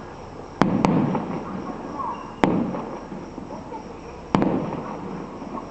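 Fireworks going off: four sharp bangs, two in quick succession early on and then one about every two seconds, each trailing off in a rumbling, crackling echo.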